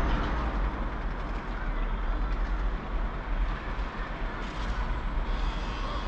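Outdoor town ambience: a steady rumble of distant traffic under wind gusting on the microphone.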